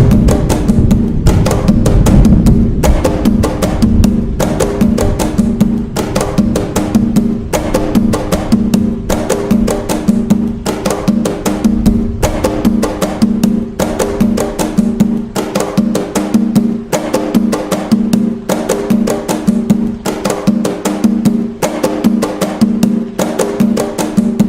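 Atabaque hand drums playing the nagô rhythm (toque nagô) of Umbanda, as a steady, repeating pattern of rapid strikes.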